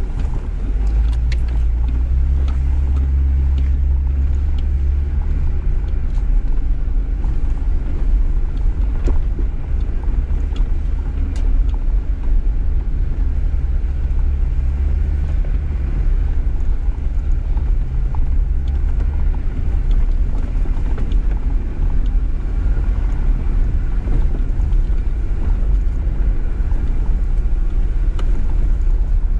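Jeep Gladiator Rubicon driving slowly on a dirt road: a steady, loud low rumble of engine and tyres, with scattered short knocks and ticks.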